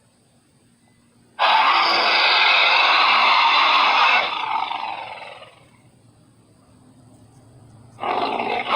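Creature roar sound effect: after a short quiet, a loud, harsh roar starts about a second and a half in, holds for about three seconds, then trails off falling in pitch. A second roar starts near the end.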